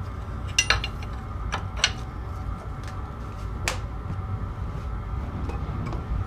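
Metal objects clinking and knocking, about five short sharp strikes, the brightest one ringing briefly a little before four seconds in, over a steady low rumble.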